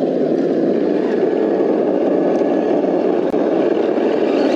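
Simulated engine sound from an RC crawler's ESS Dual sound-kit speaker: a steady, loud idling rumble while the truck creeps up a rock.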